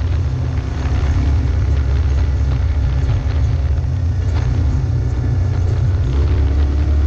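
Off-road vehicle engine running at low speed with a heavy, steady rumble. Scattered knocks and rattles come in as it rolls over a rough, rocky dirt trail.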